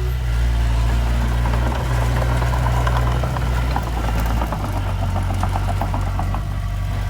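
Diesel engine of heavy earthmoving machinery running steadily, with a rapid metallic clanking rattle over it; the engine note drops about halfway through.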